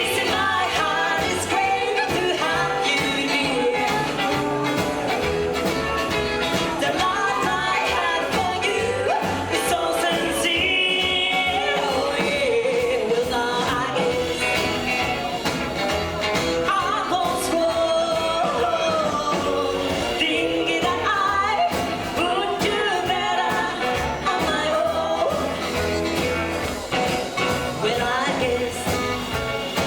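A live rockabilly band playing a song, with a woman singing over guitar, bass and drums.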